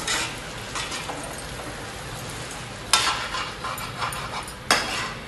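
A spatula stirring onions and capsicum in sauce in a frying pan, the mixture sizzling steadily, with a few sharp scrapes and knocks against the pan, the loudest about three seconds in and near the end. It is the sauce being mixed after a maida (flour) slurry has gone in to thicken it.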